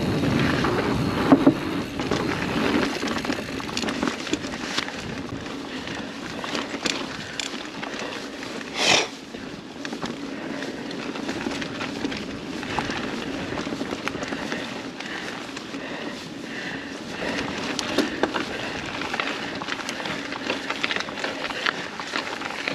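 Mountain bike rolling along a dirt trail over leaf litter: tyres crunching and the bike rattling and clicking over the bumps. A clatter about a second in as it crosses a wooden footbridge, and a brief loud rasp about nine seconds in.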